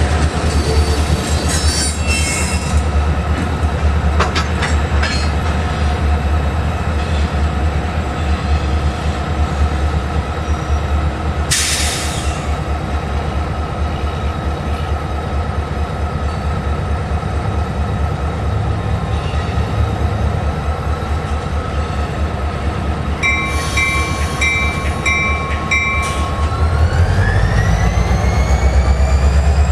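EMD 645 diesel prime mover of a freight locomotive running steadily with a deep rumble and a faint whine. A single click sounds partway through, and a short run of about five beeps comes near the end. After that a whine rises in pitch and the engine grows louder.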